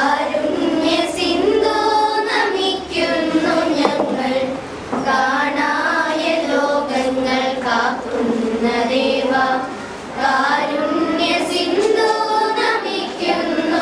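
A group of children singing a song together without accompaniment, in long phrases with short pauses for breath.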